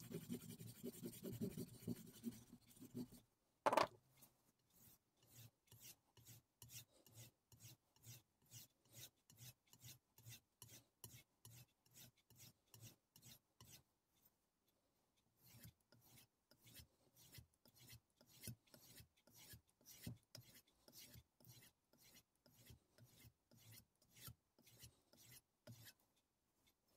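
Faint, regular strokes of a Kai Shun Gold chef knife's edge drawn across a homemade strop, about two a second, with a short break near the middle: the edge being polished and deburred after sharpening. It opens with a few seconds of scuffing and a single knock.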